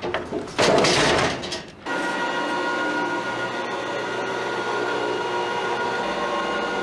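A loud crash of wood as a wooden chair frame is thrown out, then a steady electric motor whine with a few fixed tones as a hoist lowers a steel-framed platform down the shaft.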